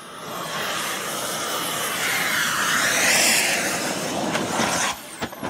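Radio-controlled model airplane's engine rushing past in a low pass, swelling to a peak about three seconds in and falling away. A few sharp clicks near the end.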